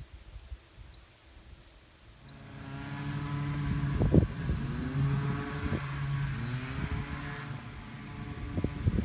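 Three short chirps, about a second apart. Then, about two seconds in, an engine fades in and runs steadily with a low hum, with a couple of thumps over it.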